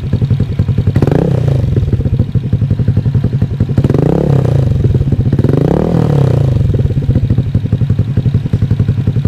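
Honda AirBlade scooter's single-cylinder engine idling loudly through an aftermarket M4 exhaust pipe, revved three times, about a second, four and six seconds in, each rev rising and dropping back to idle.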